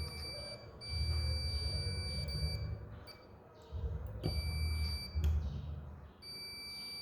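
Multimeter continuity buzzer giving a steady high beep on the boot-handle microswitch, cutting in and out four times as the probes make and lose contact. The beep shows the switch is closed and passing current. A low rumble of handling noise runs underneath.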